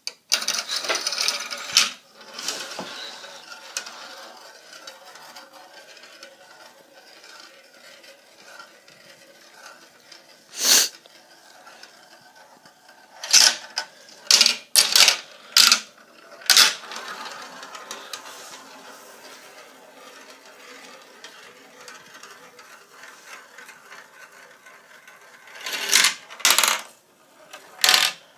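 Marbles rolling along a marble run, a steady rolling rattle broken by loud clacks and clatters as they drop and knock against the track or each other: a cluster at the start, one about eleven seconds in, a run of them a few seconds later, and more near the end.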